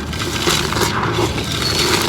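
Concrete pot crumbling: a dense, unbroken run of small crackles and gritty scraping as pieces break and grind together.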